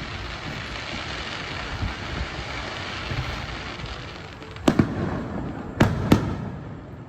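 Aerial fireworks going off: a steady hiss and crackle, then three sharp bangs, one about two-thirds of the way in and two in quick succession near the end.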